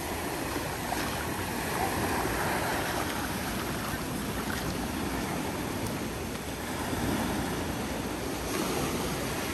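Small ocean waves washing up and running back on a sandy beach: a steady surf wash that swells a little as each wave comes in.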